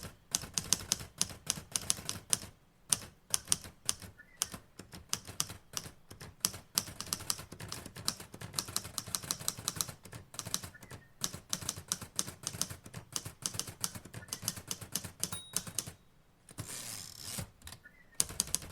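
Typewriter keys clacking in rapid bursts with short pauses between them. Near the end comes a short ding and a brief rasp, as at the end of a typed line.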